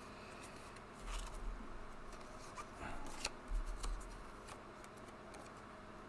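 Tarot cards being handled and moved on a cloth-covered table: light scrapes and clicks of card against card, with two dull bumps about one and three and a half seconds in, then quieter near the end.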